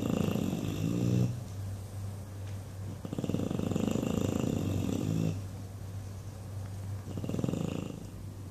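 English Bulldog snoring loudly in its sleep, three long fluttering snores a few seconds apart, the last one shorter.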